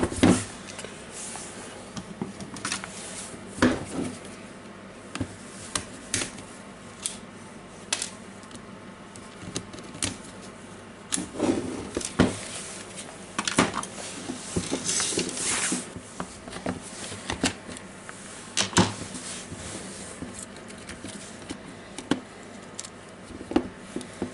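Parts of a disassembled Makita DDF482 cordless drill being handled: irregular clicks, taps and knocks of plastic housing and metal motor parts, with a brief scraping about fifteen seconds in.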